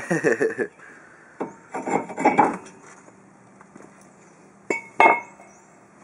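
Front brake rotor of a 2006 Chevrolet Silverado pulled off its hub and set down: metal scraping and clattering, then two sharp metallic clanks with a brief ring near the end.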